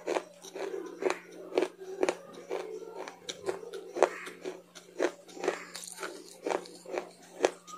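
Close-up chewing of crunchy raw leafy greens, a crisp crunch about twice a second.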